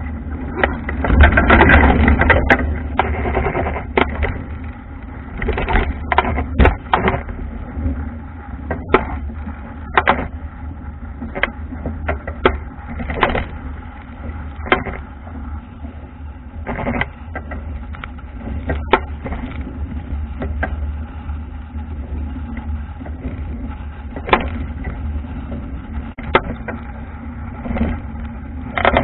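Wind buffeting the microphone over water rushing along the hull of an Albacore dinghy sailing hard, with irregular sharp slaps and splashes of waves and spray against the wooden bow. A louder surge of wind and water comes about a second in.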